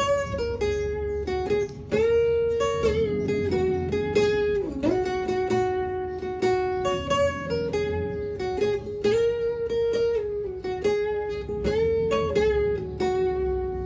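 Steel-string acoustic guitar fingerpicked: a slow melody of held notes over plucked accompaniment, easing off near the end.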